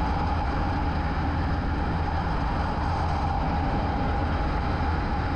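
Motorcycle riding at a steady cruise: the engine's even low rumble mixed with wind and road rush, holding constant with no change in revs.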